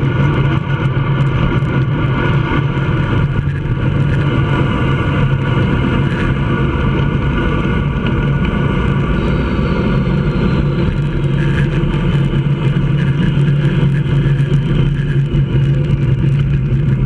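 Steady loud wind rush over the microphone of a handlebar-mounted GoPro on a road racing bike moving at speed, with a low hum, mixed with the bike's rolling noise on the asphalt.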